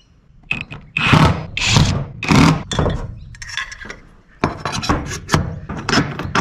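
Aluminium solar-mount profile and bracket scraping together as they are fitted by hand: several long scrapes, then a quick run of short metal clicks from about four and a half seconds in.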